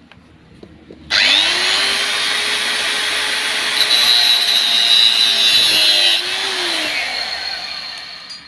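Angle grinder with a cutting disc, switched on about a second in and spinning up to speed, cutting off the end of a steel motorcycle crankcase bolt. It gives a sharper screech for about two seconds while the disc bites the bolt, then it is switched off and whines down near the end.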